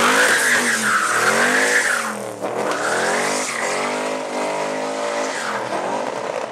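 Classic American muscle car doing a burnout: the engine revs up and down while the rear tyres squeal, the squeal strongest in the first two seconds.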